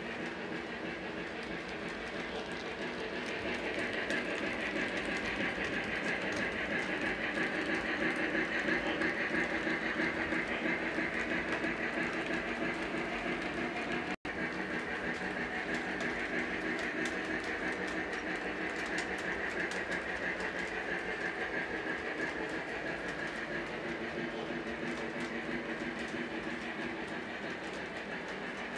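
O-gauge model train, a Lionel Santa Fe 3751 steam locomotive pulling streamlined passenger cars, running steadily on three-rail track: a continuous rolling clatter of wheels and motor, growing louder a few seconds in as it passes close by.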